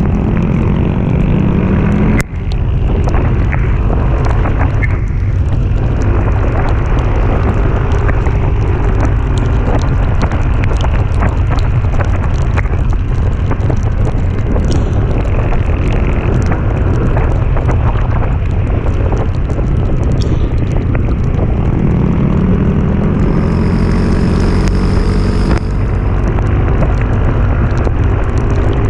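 A vehicle engine pulling uphill under heavy wind buffeting on the microphone. The engine pitch rises near the start and again a little past the twenty-second mark, with a brief break in the sound about two seconds in.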